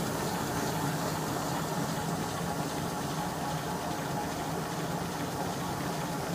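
Seewer Rondo SKO 68 dough sheeter running empty: its electric drive and canvas conveyor belts give a steady mechanical hum that holds an even level throughout.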